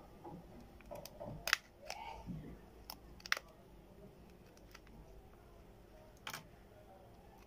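A few sharp, short clicks and taps as a smartphone is handled and turned over in the hand against a hard tabletop.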